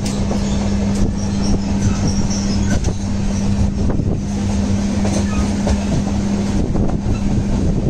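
Mandavi Express passenger train running along the track, heard from on board: a steady rumble with a constant low hum and a few sharp knocks from the wheels and couplings.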